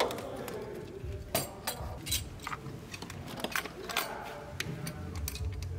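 Hand tools and loose metal parts clinking on an engine's fuel rail fittings, a string of irregular sharp clicks.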